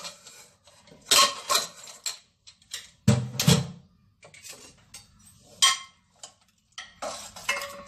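Metal clanks and clinks as a pressure cooker's lid is unlocked and taken off, then a metal ladle knocks against the cooker while stirring the cooked dal and vegetables. Several short, sharp strikes with a little ringing, the loudest about three seconds in.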